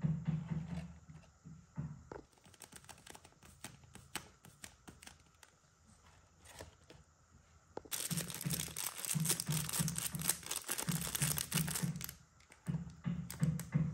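Paper and plastic crinkling and rustling as handmade paper craft items are handled and packed into a box of shredded paper filler. Light taps and rustles for several seconds, then loud, dense crinkling from about eight seconds in, as a paper squishy in a clear plastic bag is handled.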